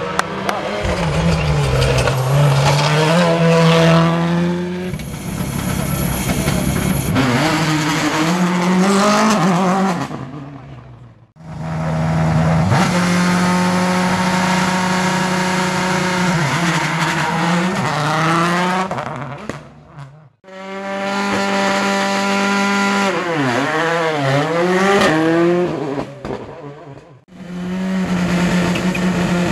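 Turbocharged four-cylinder World Rally Cars at full speed, their engines climbing and dropping in pitch through gear changes and braking. Four separate passes, each cut off abruptly, at about 11, 20 and 27 seconds.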